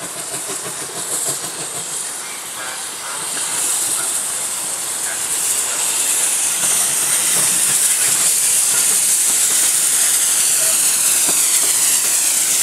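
Steam locomotive GWR pannier tank No. 1369 drifting into the platform, its steam hissing loudly. The hiss builds from about three seconds in as the engine comes closer and stays strong to the end.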